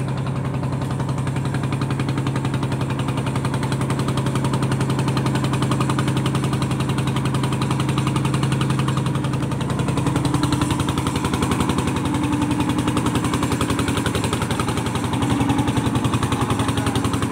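Engine aboard a small wooden fishing boat running steadily, with a fast, even chugging beat and a constant low hum.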